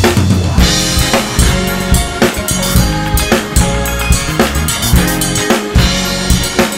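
Acoustic drum kit played in a steady, busy groove of bass drum, snare and cymbals, along with a recorded music track carrying bass and other pitched parts.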